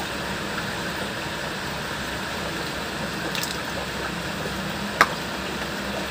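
Plastic containers being handled on a hard floor: light rustles and taps over a steady background hiss, with one sharp plastic click about five seconds in.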